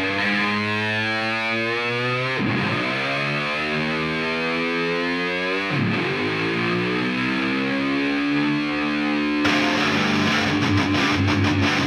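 Background music: held, distorted electric guitar chords with a sweeping effect, the chord changing twice. A full rock band with drums comes in about nine and a half seconds in.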